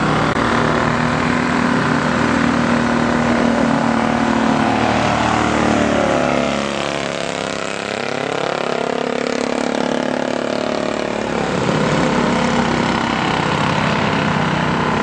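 Thunder Car race car engines running at speed. The pitch falls about six seconds in and climbs again a few seconds later.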